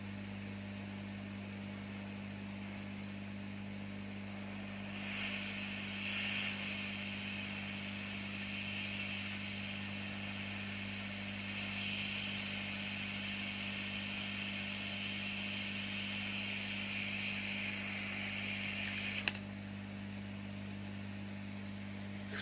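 Hot air rework station blowing a steady hiss that starts about five seconds in and cuts off with a click near the end, over a constant electrical hum.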